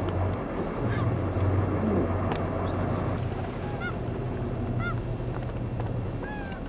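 Boat engine running with a steady low hum over sea and wind noise. In the second half a seabird calls three times with short, high, arched notes.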